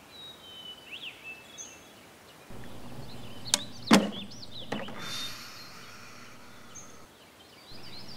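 Birds chirping in short twittering calls, with two sharp knocks a little past halfway, a lighter one just after, and a brief hiss following them.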